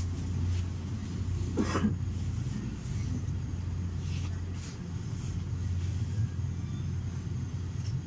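Steady low hum and rumble inside an MBTA commuter rail coach, with scattered faint clicks and a short voice sound about two seconds in.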